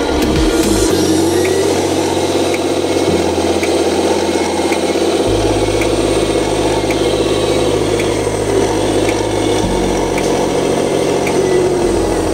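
Radio-controlled miniature model truck driving, its small electric motor and gears running steadily.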